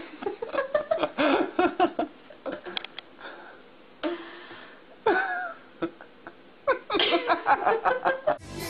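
People's voices in short bursts of talk and laughter, with quieter gaps between. Music cuts in suddenly near the end.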